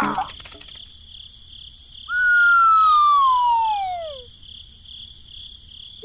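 A cartoon descending-whistle sound effect: one clean whistled tone sliding steadily down in pitch over about two seconds, about two seconds in. Underneath, a faint steady cricket-like chirping.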